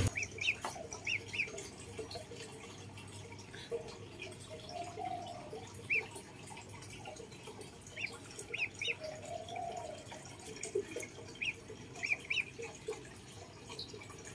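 Duckling peeping: short high peeps scattered throughout, some coming in quick twos and threes.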